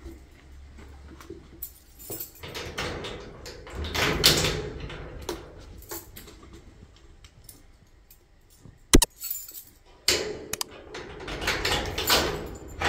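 A bunch of keys jangling while a padlock on a storage unit's metal door hasp is unlocked, with irregular metallic rattles and clicks. A single sharp click about nine seconds in is the loudest sound.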